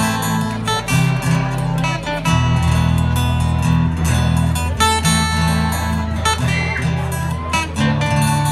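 Acoustic guitar strumming chords, the strokes repeating steadily over ringing bass notes.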